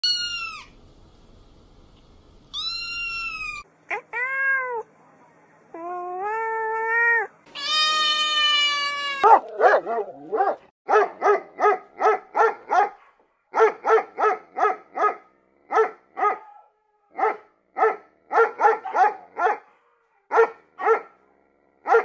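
Domestic cat meowing, about five drawn-out meows in the first nine seconds. Then a dog barking sharply and fast, about three barks a second in runs of several with short pauses between.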